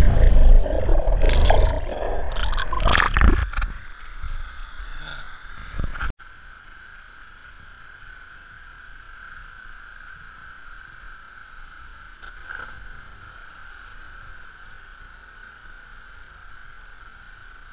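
Loud muffled rumbling and sloshing of water against a camera held in the pool, fading after a few seconds; then, after a sudden cut, the steady rush of a small weir waterfall into the pool, with one faint splash about 12 seconds in.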